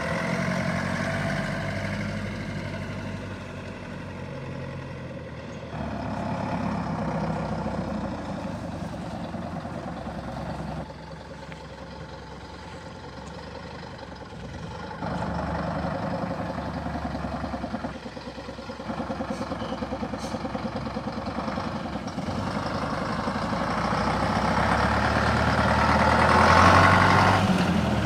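Scania Super 50 truck's diesel engine idling steadily, growing louder toward the end.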